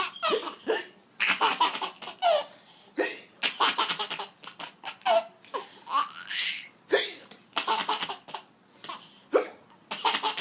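A baby laughing in short, repeated high-pitched bursts, with hiccups among the laughs.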